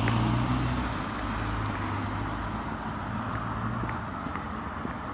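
An Audi sedan driving past and away, its low engine hum and tyre noise fading over about four seconds.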